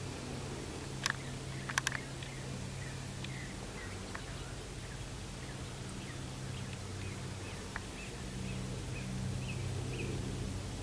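Faint outdoor ambience of small birds chirping here and there, over a steady low hum. A few sharp clicks stand out, one about a second in and a quick cluster just under two seconds in.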